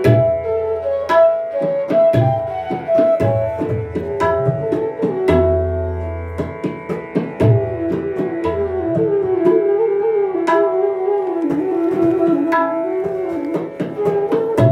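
Bansuri (bamboo flute) playing a melodic phrase in raga Abhogi, with tabla accompaniment in Ada chautaal. Crisp right-hand drum strokes run throughout, and several deep, ringing bayan strokes come in between.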